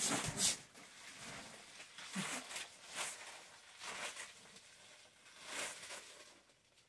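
Clear PVC dress rustling and crinkling as it is handled and pulled on, in a handful of short separate bursts, the loudest right at the start.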